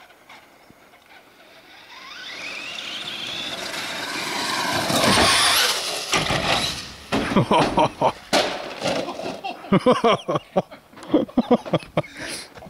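Traxxas Slash 4x4 electric RC truck speeding up: its motor whine rises in pitch and grows louder for several seconds as it charges toward the jump. After the peak, about halfway through, come a run of sharp noises and excited shouting.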